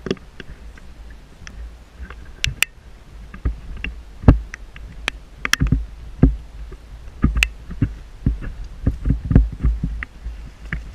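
Irregular knocks and thumps from a handheld camera being carried along a rocky ledge, with footsteps on rock, coming thicker in the second half. Under them runs a steady low wind rumble on the microphone.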